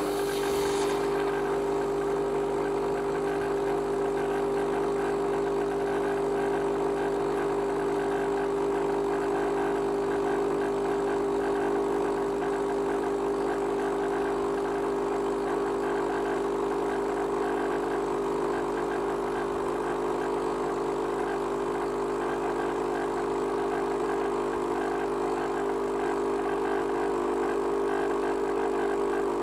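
Nescafé Gold Blend Barista coffee machine running with a steady mechanical hum while it dispenses coffee into a mug.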